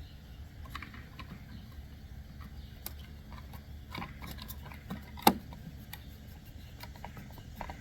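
Small plastic parts of a car's door-lock switch being handled and fitted back into their housing: scattered light clicks and taps, with one sharper snap about five seconds in.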